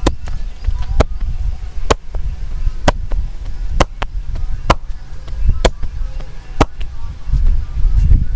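A masseur's hands slapping a client's head or back in a steady rhythm, one sharp slap about every second, over a steady low rumble.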